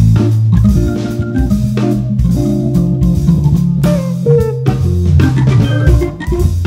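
Jazz organ trio playing: organ, guitar and drum kit together, with steady low bass notes under held chords and frequent drum hits.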